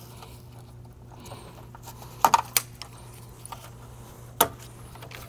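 Sharp clicks and clatter of car parts and tools being handled: a quick cluster of three about two seconds in and a single click a couple of seconds later, over a steady low hum.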